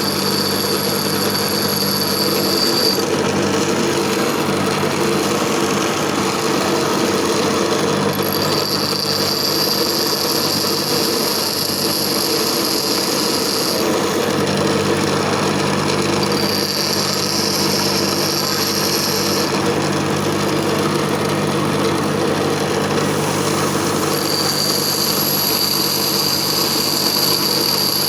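Grinder running steadily while a lathe parting tool is ground on it. A high-pitched whine comes in for several stretches of a few seconds each over the motor's steady hum.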